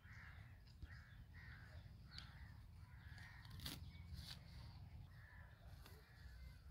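Crows cawing, a faint run of short caws about one or two a second, over a low steady rumble, with a sharp click about halfway through.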